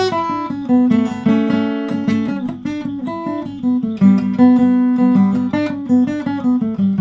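Acoustic guitar being played, a run of chords with individual notes picked and strummed, each ringing on.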